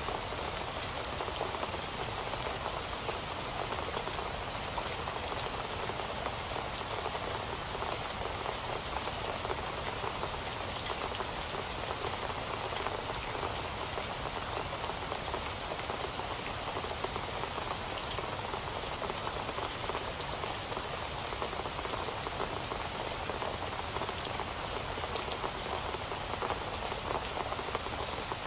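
Steady rain falling on a surface, a dense even patter of drops with no thunder or other events.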